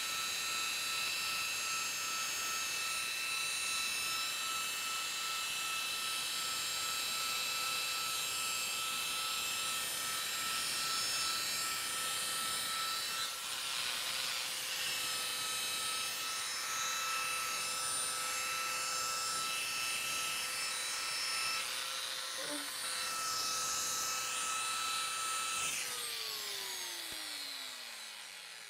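Flex rotary polisher with a foam pad running steadily against a plastic headlight lens during the cutting-compound buffing step, a steady whine over the rub of the pad. Near the end it is switched off and its whine falls in pitch as it spins down.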